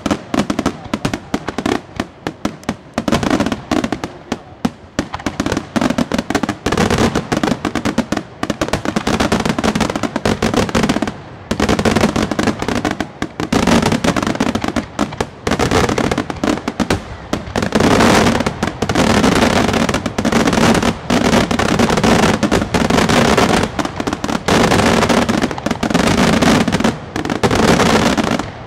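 Bruscella Fireworks' aerial shells bursting one after another, a rapid succession of bangs that thickens into a dense, almost continuous barrage from about two-thirds of the way through.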